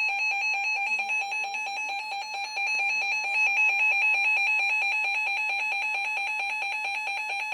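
Emergency Alert System two-tone attention signal: a loud, steady, harsh dual-pitch alarm tone that holds without a break. It is the alert tone that precedes the spoken warning message.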